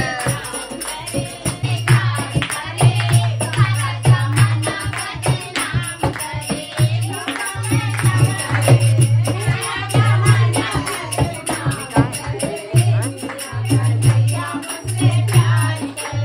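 A group of women singing a folk song together to a fast clapped and rattled rhythm.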